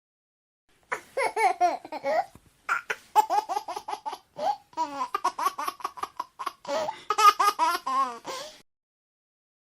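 A baby laughing: after about a second of silence, a run of quick, high-pitched giggling bursts lasting about seven and a half seconds, then stopping.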